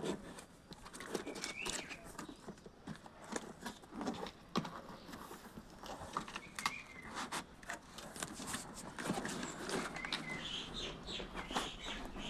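Scattered clicks, knocks and rustling of packaging being handled while an induction cooktop is unboxed, with a few brief high squeaks.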